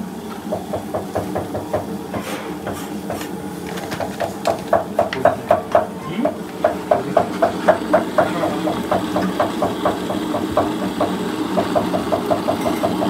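Kitchen mixer grinder running steadily, grinding coconut paste for a fish curry, with a fast, even knocking about five times a second that comes and goes.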